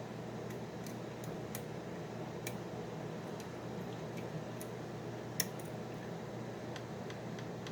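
Lock picks working inside a Mauer NW4 dimple-lock cylinder while the sliders are being picked: scattered faint metallic ticks, with one sharper click about five and a half seconds in.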